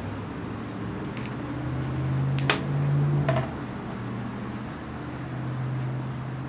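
Three sharp metallic clinks about a second apart, the middle one loudest, from handling the hard parts of a flashlight, over a steady low hum.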